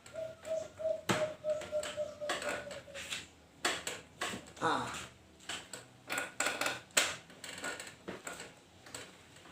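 A string of irregular sharp clicks and taps. A faint steady pulsing tone runs through the first three seconds, and a brief falling voice sound comes about five seconds in.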